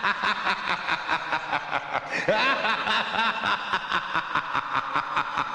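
Electronic dubstep-style show soundtrack with a fast, even stuttering pulse, and chopped laugh-like vocal sounds in the middle.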